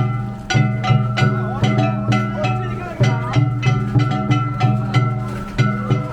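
Danjiri hayashi festival music from a float: a steady beat of plucked shamisen-like notes with drums.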